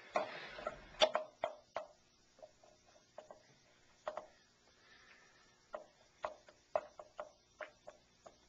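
Chess pieces being set down and knocked against a board in quick play: a string of sharp, irregular clacks, bunched at the start and coming fast again over the last few seconds.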